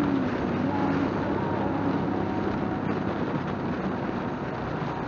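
Motorcycle cruising at highway speed: the engine running steadily under wind rush on the microphone.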